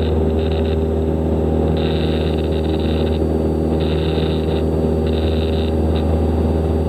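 Steady drone of a Cessna 172 Skyhawk's four-cylinder piston engine and propeller in flight, heard inside the cabin. Several short bursts of a fainter, higher hiss come and go over it.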